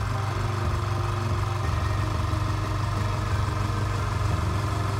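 Fengda FD186 airbrush compressor running with a steady low hum while it fills its 3-litre air tank.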